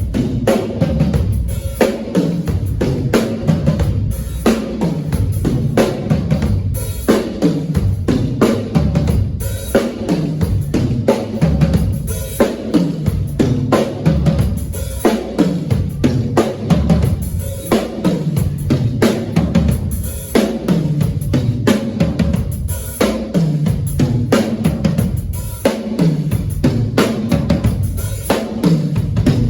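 Drum kit played hard and without a break: bass drum, snare and rimshots in dense, fast patterns and fills, with low runs that fall in pitch again and again.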